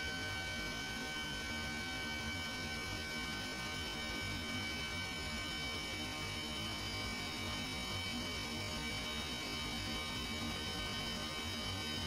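Steady machinery hum of a running Carrier water-cooled chiller, with several high whining tones held at an even pitch.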